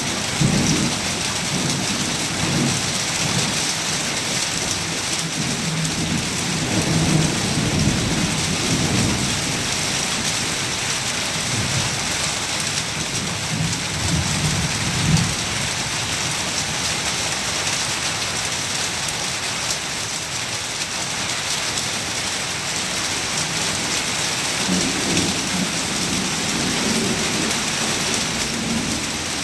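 Heavy rain falling steadily, with rolling thunder rumbling through the first half and again a little before the end.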